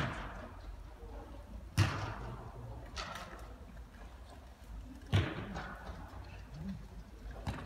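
A football being kicked and struck hard, heard as sharp echoing thuds. The loudest come at the start, about two seconds in and about five seconds in, with fainter knocks around three seconds and near the end.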